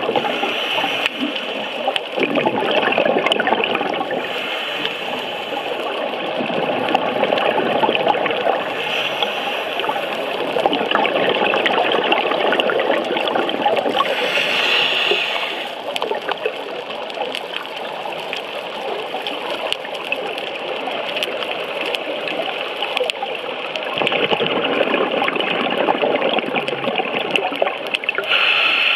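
Underwater bubbling and rushing water heard through a diving camera's housing, swelling louder every several seconds as a scuba diver's exhaled bubbles pass.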